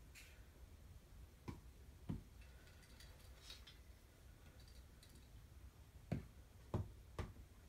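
Quiet room broken by five soft thumps, two about two seconds in and three near the end, with a faint rustle in between.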